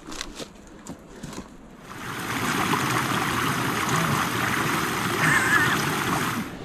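Shallow rocky stream rushing over stones, coming in loud and steady about two seconds in. Before that, a few soft ticks of footsteps and plants brushing in the undergrowth.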